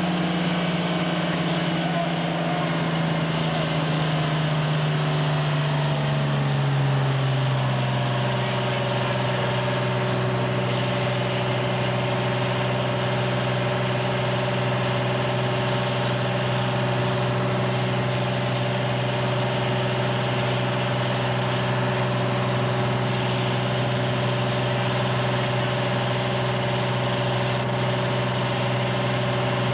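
Fire truck engine running steadily at a raised speed; its pitch drops over the first eight seconds or so, then holds steady.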